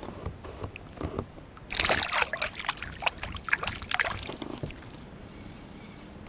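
River water splashing and trickling for about three seconds, starting a little under two seconds in, with a few light knocks before it.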